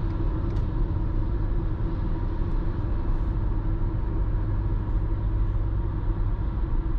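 Steady in-cabin drone of a Dacia Jogger Hybrid 140 driving at motorway speed, mostly low tyre and road rumble with the engine running.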